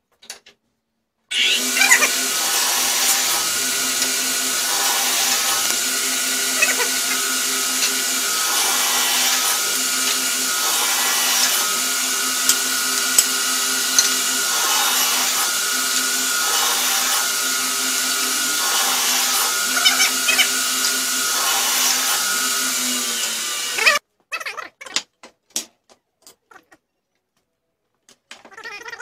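Power miter saw running steadily while it cuts wooden strips, with a cut heard roughly every two seconds. It starts suddenly about a second in and stops abruptly a few seconds before the end.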